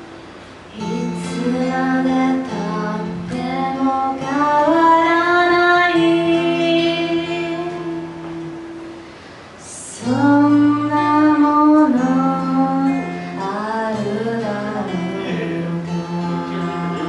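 A woman singing slow, long-held phrases over her own acoustic guitar. The singing eases off about eight seconds in and comes back strongly about two seconds later.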